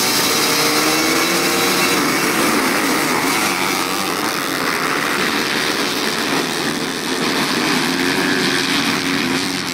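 A pack of motocross bikes revving together at a race start, several engines rising in pitch at once as they accelerate away from the gate.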